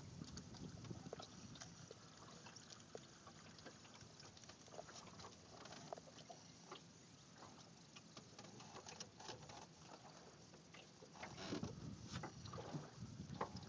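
Faint water lapping and trickling against the hull of a small boat: a scatter of small patters and drips over a low wash, a little louder near the end.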